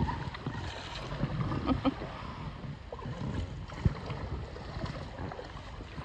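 Paddles dipping and pulling through calm river water as a small boat is rowed along, with soft splashes and an occasional knock.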